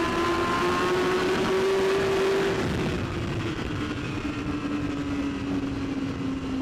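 Inline-four superbike engine running at a held throttle. Its note climbs slightly, then eases off about two and a half seconds in and sags slowly in pitch.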